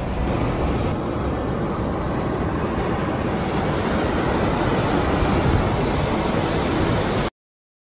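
Ocean surf washing onto a sandy beach: a steady rush of noise that cuts off abruptly near the end.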